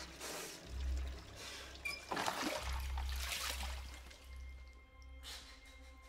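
Water running from a tap into a sink, over a low, swelling film score. The running water fades away near the end.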